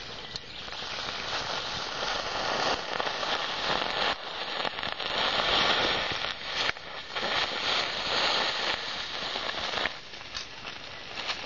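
Potassium nitrate (KNO3) mixture burning fiercely in a tin can: a loud, surging hiss with scattered crackles and pops, swelling about a second in.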